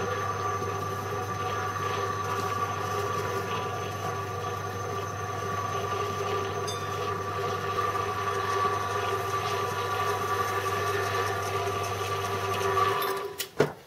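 Electric motor on a home-built milling machine running steadily under power, driving a V-belt and pulley, with an even hum and a steady whine. It is switched off about thirteen seconds in, and the sound stops, followed by a couple of clicks.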